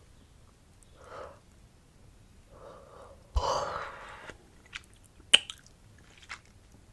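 A person yawning: soft breathy sounds, then a loud yawn that starts suddenly about halfway through and fades over about a second. It is followed by a few sharp wet mouth clicks, one much louder than the rest.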